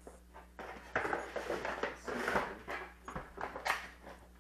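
Long cardboard product box with its plastic insert tray being handled, slid shut and stood up: a few bursts of cardboard scraping and rustling with light knocks, the sharpest near the end.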